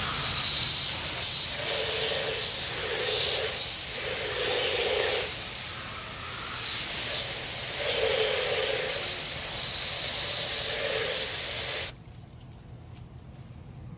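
Water sprayed from a nozzle onto a chrome truck wheel and tyre, rinsing off wheel cleaner: a loud, steady hiss that swells and dips, then stops abruptly about twelve seconds in.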